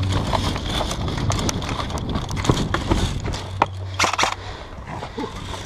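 Footsteps and the rattle of gear as an airsoft player moves: irregular knocks and clicks, with a few sharper knocks near the middle, over a low steady hum.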